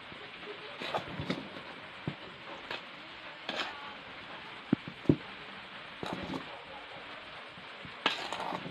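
Metal spoon stirring flour and other dry ingredients in a metal bowl, with irregular scrapes and clinks against the bowl's side.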